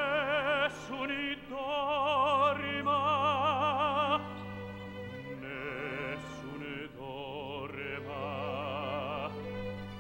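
Operatic tenor singing two sustained phrases with wide vibrato over sustained orchestral accompaniment, the first phrase louder than the second.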